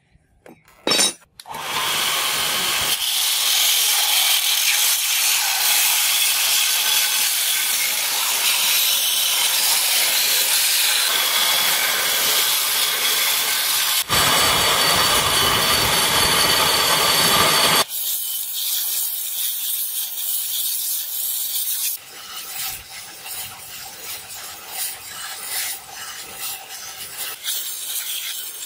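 Belt grinder's abrasive belt grinding a steel sword blank: a loud, steady rasping hiss that changes abruptly several times, becoming quieter and more uneven about two-thirds of the way through.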